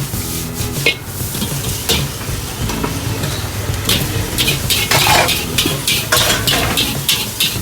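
Stir-fry noodles sizzling in a hot wok while a metal spatula scrapes and clanks against the pan in quick repeated strokes, coming more often from about halfway through, over a low steady hum.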